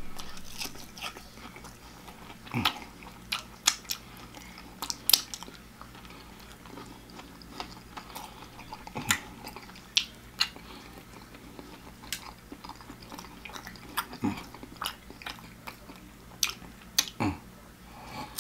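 Close-miked eating of crispy fried meat: chewing and lip smacking, with irregular sharp wet mouth clicks and the sucking of licked fingers.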